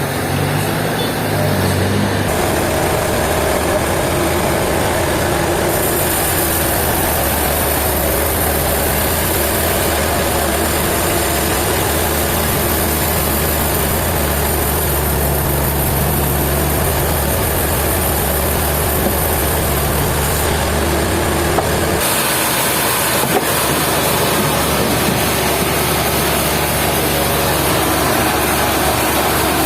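A large engine running steadily at a low, even speed, its tone changing abruptly a few times where clips are joined.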